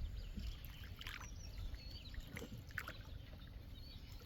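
Water trickling and splashing lightly around a small boat, a few short splashes standing out, over a low steady rumble.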